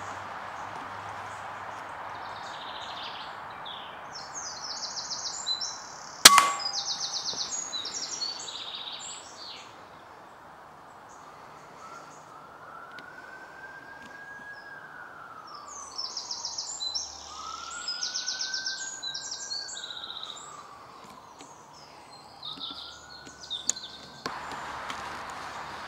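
A single sharp shot from a Daystate air rifle about six seconds in, with a short ringing tail. Songbirds trill and chirp before and after it.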